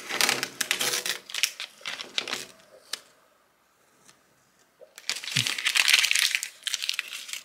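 Crinkling and rustling of a thin sheet being pulled off slowly, in two stretches: the first two and a half seconds or so, then again from about five seconds in. A short thud comes just before the second stretch.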